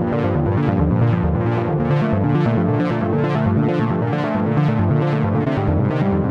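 Background electronic music with synthesizer chords and a steady beat of a little over two pulses a second.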